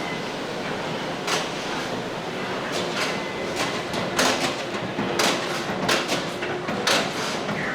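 Steady rumbling noise broken by about six sharp clacks at uneven intervals.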